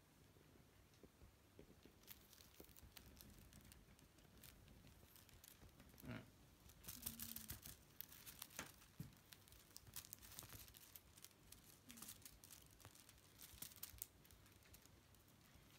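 Faint scratching and rustling of kittens' claws on a fleece blanket and a feather wand toy as they play, with quick crackles coming thickest in the middle.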